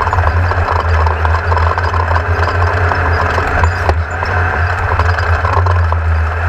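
A vehicle engine running steadily at a constant pitch, a loud low drone with a dense rattling, clicking noise over it.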